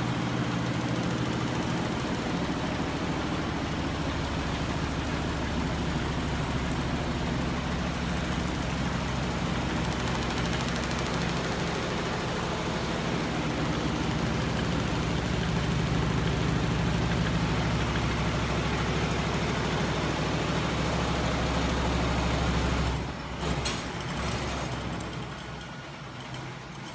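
Home-built crank-and-flywheel machine, driven by a 12 V electric motor, running steadily with a low mechanical hum. About 23 seconds in the running sound drops away suddenly, with a few clicks.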